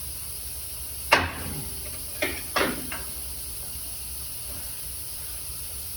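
Three sharp knocks over a steady hiss: the loudest about a second in, then two more in quick succession about a second later.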